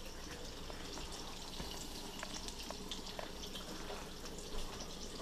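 Cracker-battered fish frying in a pan and a pot of potatoes boiling on the stove: a steady hiss with scattered small pops.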